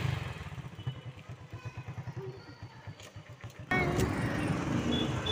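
Motorcycle engine running with an even low pulsing while riding on a road. About two-thirds of the way in the sound jumps abruptly louder, with denser traffic and road noise.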